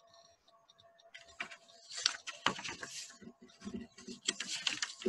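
Irregular rustling and clicking handling noises close to the microphone, starting about a second in, over a faint steady hum.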